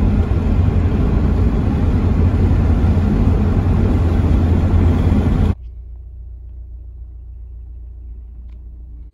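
Car on the move: loud, steady road and wind rumble, heaviest in the low end. About five and a half seconds in it drops abruptly to a much quieter steady hum.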